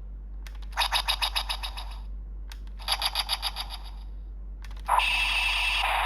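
Electronic sound effects from the speaker of an Ultraman Trigger Guts Sparklence transformation toy. Twice, a click is followed by about a second of rapid pulsing chime, roughly ten beeps a second. A third click near the end starts a continuous synthesized sound effect.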